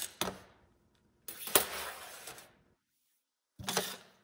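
Handling noise of an AR-style rifle's buffer and recoil spring being slid out of the buffer tube: short bursts of metallic scraping and clinking, each starting sharply and fading, with a second of dead silence between the last two.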